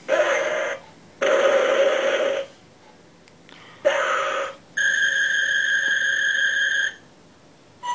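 Electronic sound effects from an Ultraman toy, played through its small speaker: three short hissing bursts, then a steady high-pitched electronic tone held for about two seconds.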